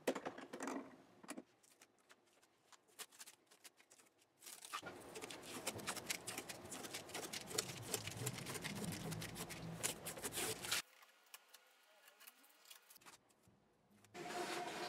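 Masking tape being peeled and pulled off a guitar's maple fretboard after fret polishing: scattered small clicks at first, then several seconds of dense crackling and rustling.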